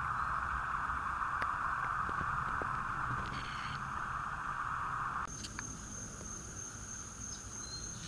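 Steady buzzing insect chorus in the evening. The lower buzzing cuts off suddenly about five seconds in, and a thin, high, steady trill carries on.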